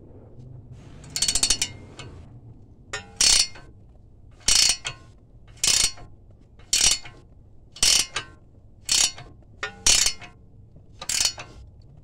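Ratchet wrench worked back and forth on a stiff locking nut. Its pawl gives a short rattle of clicks on each back-swing, about once a second, nine times.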